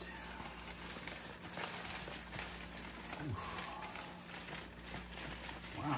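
Hands unwrapping packing paper and plastic wrap, with steady rustling and crinkling.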